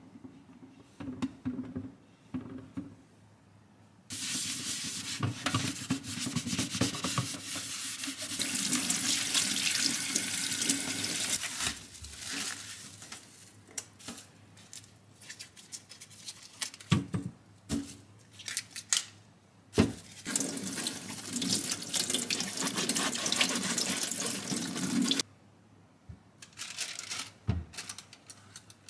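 Kitchen tap water running into a stainless steel sink in two long spells, the second shut off abruptly. Between the spells come scattered knocks and handling sounds of produce at the sink.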